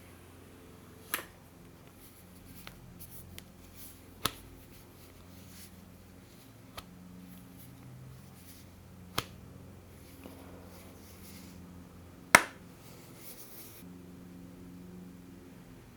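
Hands unboxing a foldable smartphone: four sharp clicks or taps of the phone and packaging, the loudest about twelve seconds in. Fainter ticks and soft rustling come between them.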